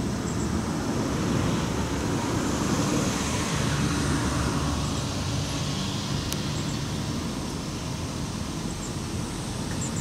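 Steady engine and traffic rumble, swelling about a second in and easing off after about five seconds.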